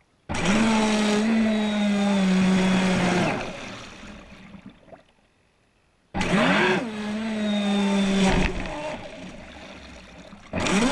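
Onboard sound of the Pro Boat Miss Geico 29 RC catamaran's 1500kv brushless electric motor: a whine that comes in abruptly under throttle and holds steady for about three seconds, then dies away. It starts again about six seconds in, the pitch swooping up and back down as the motor spins up before settling, and once more near the end.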